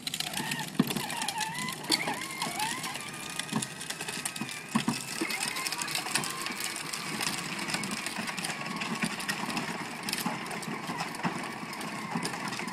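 Electric motors and gearboxes of children's battery-powered ride-on toys whining steadily as they drive, with hard plastic wheels rolling on concrete.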